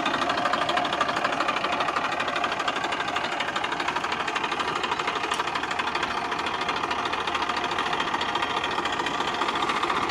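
Massey Ferguson 1035 DI tractor's three-cylinder diesel engine running with a fast, even clatter, at a steady level.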